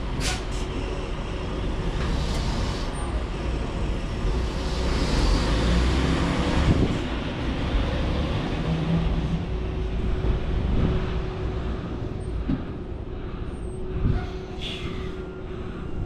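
Semi truck's diesel engine running out of sight as the tractor-trailer maneuvers to back into a parking spot: a low, steady rumble that grows louder around the middle and eases off later. Faint beeping begins near the end.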